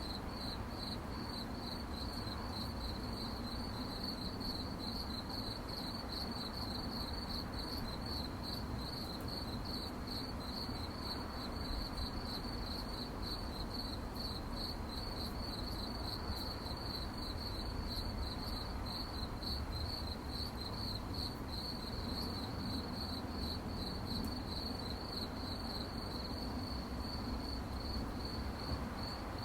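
Crickets chirping steadily, a high pulsing trill repeating about three times a second without a break, over a low steady background hiss.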